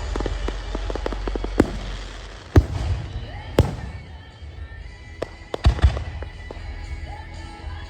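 Aerial fireworks bursting: a run of quick crackles at first, then a series of sharp booms about a second apart, with a quick double bang past the middle. Music plays underneath.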